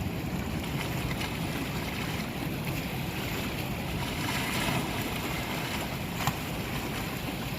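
Steady wind and water noise, with wind rumbling on the microphone.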